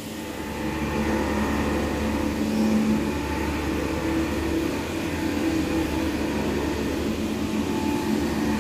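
Vertical machining centre running: a steady mechanical hum with several held tones, growing a little louder about a second in.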